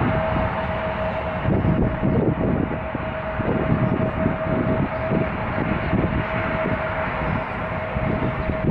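Airbus A380 jet engines running with a steady whine under a continuous rush, with heavy wind buffeting on the microphone.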